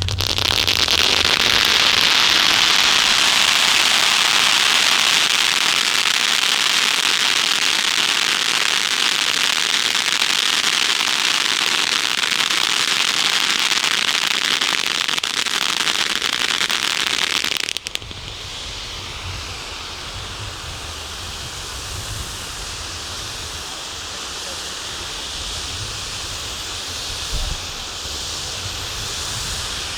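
Ground firework fountains spraying sparks with a loud, steady hiss. About two-thirds of the way in it drops abruptly to a quieter hiss with a low rumble underneath.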